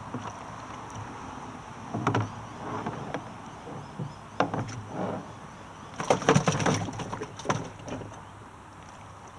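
Knocks, clunks and rattles of a Hobie kayak's plastic hull and fittings being handled by hand, in short clusters about two seconds in, around four and a half seconds, and the loudest run between six and seven and a half seconds.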